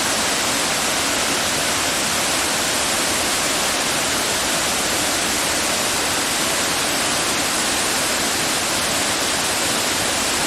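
Mallalli Falls, a large waterfall on the Kumaradhara River, giving a loud, steady rush of falling water that does not change in level.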